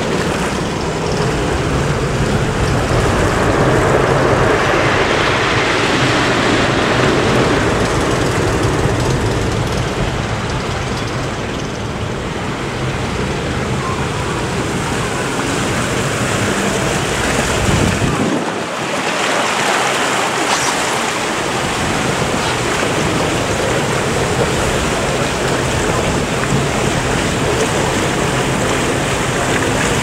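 Rushing, churning water of a river rapids ride channel swirling around the raft, with wind buffeting the microphone. The low rumble drops away briefly about two-thirds of the way through.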